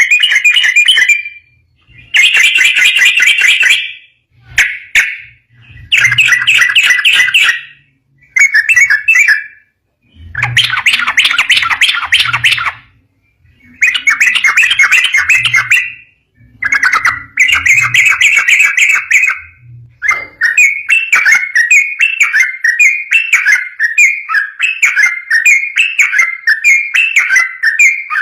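Yellow-vented bulbul (trucukan) singing a loud, rapid chattering song in bursts of a second or two with short pauses between them. About two-thirds of the way in, the song becomes an unbroken run of quickly repeated phrases. Low thuds sound under some of the bursts.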